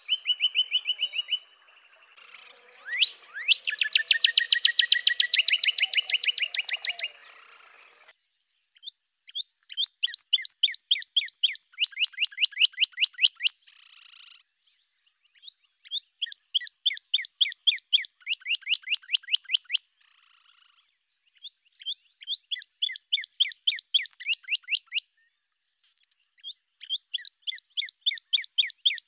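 Northern cardinal singing: bouts of rapid, evenly repeated down-slurred whistles, several notes a second, each bout lasting a few seconds with short pauses between.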